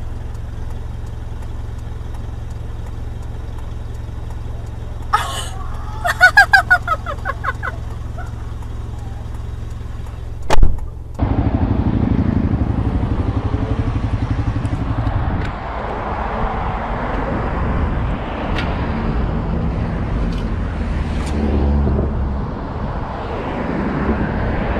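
A car engine idling steadily, broken about five seconds in by a loud run of rapid pitched bursts. After a sharp click, a motorcycle engine runs in traffic, with wind on a helmet microphone.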